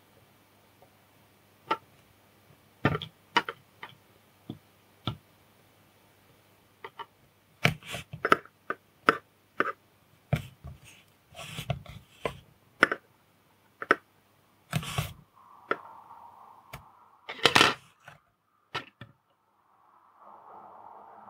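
Metal tweezers and a soldering iron tip clicking and tapping against a small circuit board and the work surface while tiny surface-mount parts are set and soldered: irregular sharp clicks, thickest in the middle. Two short spells of soft hiss come in near the end.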